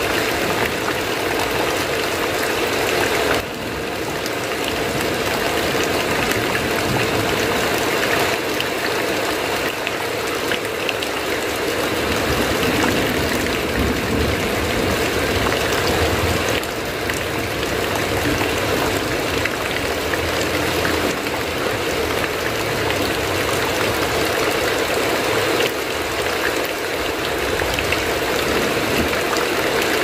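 Heavy rain falling steadily, an even, continuous hiss and patter.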